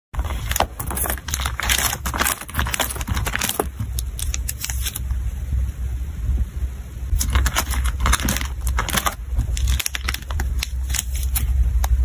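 Clear plastic photocard sleeves and binder pockets crinkling and rustling as photocards are handled and slid in and out. The crackles come in dense clusters with short clicks between them, busiest in the first few seconds and again after the middle, over a steady low hum.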